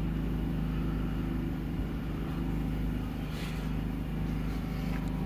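Steady low mechanical hum with several constant pitches, unchanging throughout, and a faint brief rustle about three and a half seconds in.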